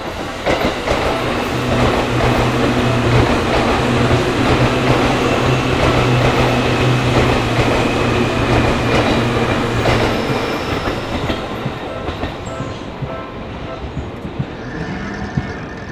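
A Seibu Shinjuku Line electric train passing through a level crossing, its wheels clattering over the rail joints with a steady low motor hum. The train noise fades over the last few seconds as the crossing bell rings through again.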